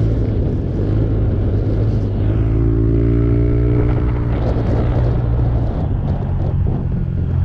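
Motor scooter engine running at a steady cruise, a low even drone. Between about two and four seconds in, a higher hum of several steady tones joins it briefly.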